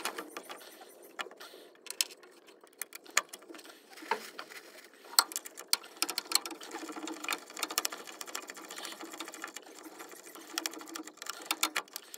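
Hand ratchet wrench clicking in short runs, with sharp metal clinks, as a starter mounting bolt is run in and tightened.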